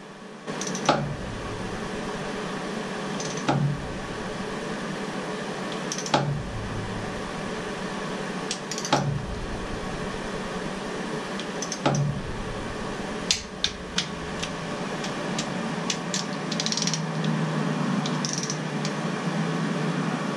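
Torque wrench clicking as the intake manifold bolts on a Ford 289 V8 reach 19 foot-pounds: a sharp click every two to three seconds, then quicker, lighter clicks in the second half, with metal tool handling between. A steady hum runs underneath.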